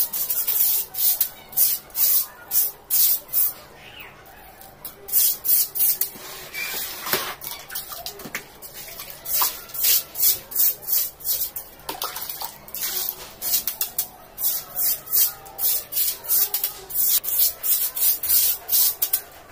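Stiff stick broom (coconut-rib jhadu) scrubbing a tiled floor. It makes quick, scratchy strokes, about three a second, in runs broken by short pauses.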